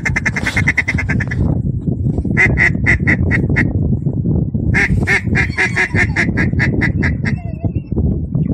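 Duck quacking in three rapid runs of short, evenly spaced quacks, about five a second, with a longer run in the second half, over a steady low rumble.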